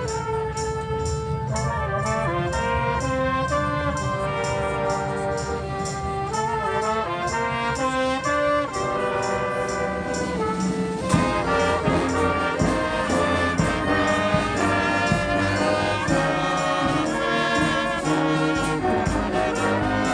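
Live brass band with trumpets and trombones playing a melody over a steady percussion beat. About halfway through, the whole band comes in fuller and louder.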